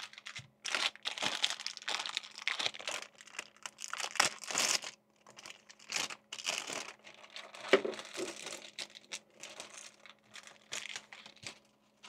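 Metallised anti-static bag crinkling as it is handled and pulled open by hand to take out a hard drive, a run of irregular crackles with no steady rhythm.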